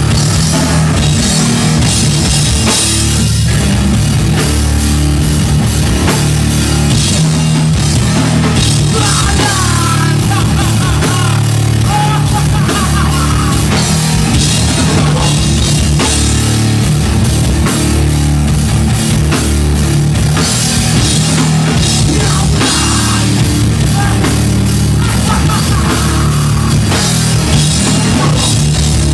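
Rock band playing live and loud: electric guitars and a drum kit going without a break.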